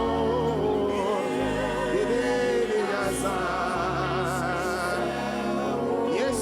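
Slow worship music: sustained keyboard chords that change every second or two, under a voice holding long notes with a strong vibrato.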